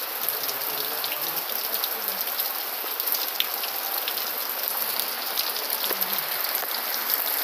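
Heavy rain falling steadily on a clay-tile roof: a dense, even hiss with scattered sharp drip ticks.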